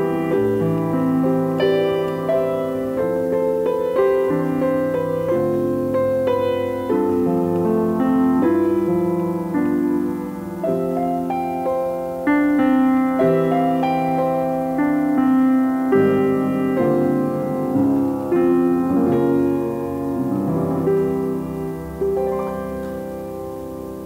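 Solo grand piano playing chords with a melody over them, the notes ringing on, growing softer over the last couple of seconds.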